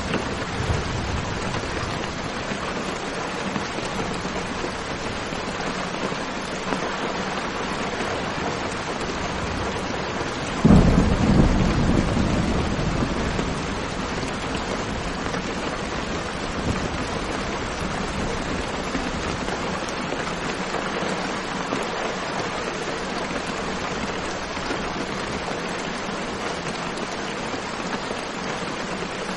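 Steady rain falling, with one sudden clap of thunder about eleven seconds in that rumbles away over a few seconds.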